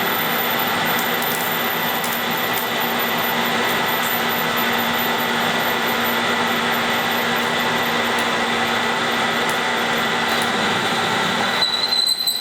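Metal lathe running under a boring cut inside a short piece of pipe: a steady, loud cutting and machine noise with several whining tones, and a few faint ticks. Near the end the noise thins and a high whistle comes in.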